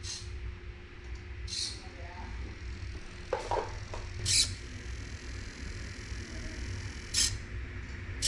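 Replacement micro servo on an AxiDraw V3 pen plotter whirring in about five short, high-pitched bursts as it lifts and lowers the pen. The new servo is working.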